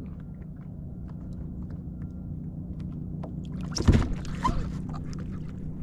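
Water lapping against a plastic fishing kayak under a steady low rumble. About four seconds in comes one sudden loud splash at the surface beside the trolled line, followed by a few smaller knocks.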